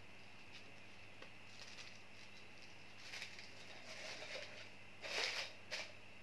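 Faint rustling of artificial flowers being folded and handled, with a short louder rustle and scrape a little after five seconds as the flower stems go into a ceramic vase.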